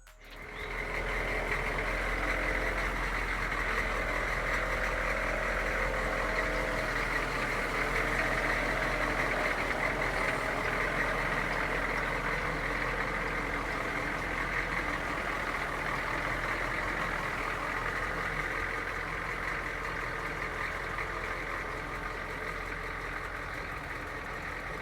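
Humvee's diesel V8 engine running steadily at idle.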